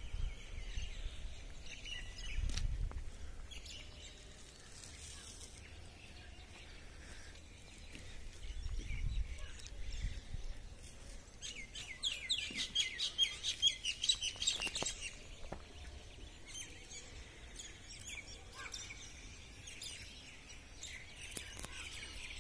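Small birds chirping, with a fast twittering run of repeated high chirps a little past the middle. Two brief low rumbles come earlier.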